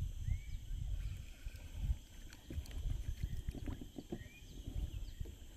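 Low, uneven rumbling of wind and handling noise on the microphone, with two faint high chirps about four seconds apart.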